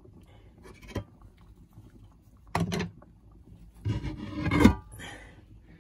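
Rubbing and scraping handling noises in kitchen work: a light click, then a short scrape, and about four seconds in a longer, louder rubbing that ends sharply.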